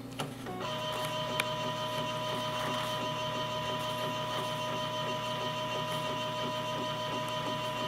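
Epson R2000 inkjet printer running: a steady mechanical whine that sets in under a second in and holds unchanged, with a single sharp click shortly after it starts.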